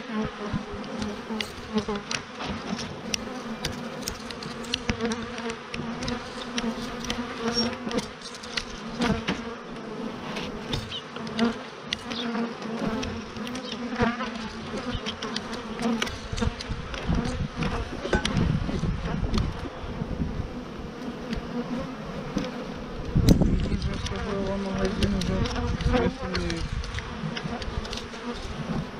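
Honeybees buzzing in a steady hum over an open hive, with scattered wooden clicks and knocks as the hive boxes and their cover are handled, and one heavy knock about three-quarters of the way through.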